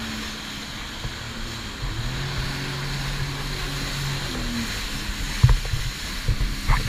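Jet ski engine running under way, with a steady hiss of wind and spray; its pitch drops about two seconds in and climbs again just past the four-second mark. A few thumps come near the end.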